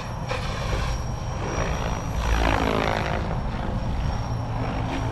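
SAB RAW 580 electric RC helicopter in flight, its rotor blades and motor whining steadily. About two seconds in, the pitch slides down as the helicopter passes by.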